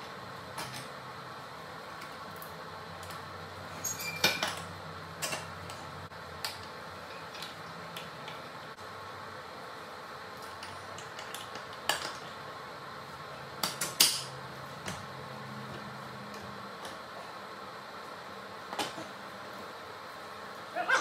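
Scattered sharp metal clinks and clanks, about nine of them, over a steady low hum, as a steel axle bolt is worked through the front wheel hub, spacers and fork of a Doodle Bug DB30 mini bike. The axle is a stiff fit and has to be forced through.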